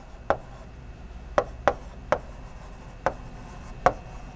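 Chalk writing on a blackboard: about six sharp, irregular taps as the chalk strikes the board, with faint scraping between them.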